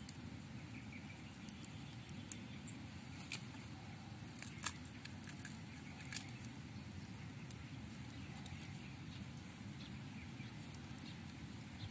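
Hands splitting open annatto (atsuete) pods, giving a few faint cracks and clicks as the pods part and the seeds are handled. Under it runs a steady low outdoor rumble with faint high chirps.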